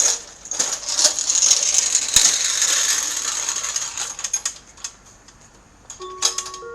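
A loud rustling hiss with crackles for the first few seconds. About six seconds in, the outdoor disaster-prevention radio loudspeaker starts its time-signal chime with a few held tones stepping upward.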